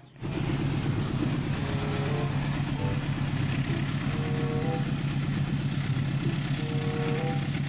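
Diesel-electric locomotive hauling a freight train: a steady low engine drone with rough rumbling noise over it.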